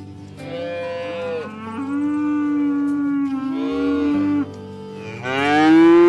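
Cattle mooing: three or four long, drawn-out moos, some overlapping, the last and loudest near the end rising in pitch.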